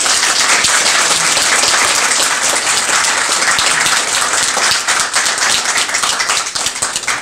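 Audience applause: a roomful of people clapping steadily together.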